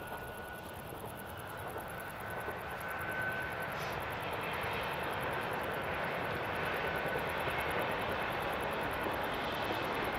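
PKP Intercity ED160 (Stadler FLIRT) electric multiple unit passing at a distance: a steady rushing rumble that grows louder over the first few seconds and then holds, with a faint high whine during the first half.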